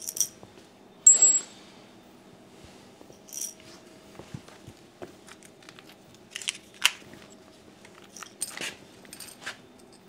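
Irregular clicks and light clinks of small hard objects being handled, the loudest about a second in, over a faint steady hum.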